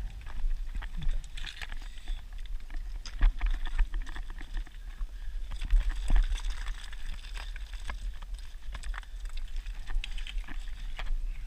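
Scrambling over broken rock: irregular clicks and knocks of boots and aluminium trekking-pole tips on stone, over a low rumble of wind buffeting the microphone.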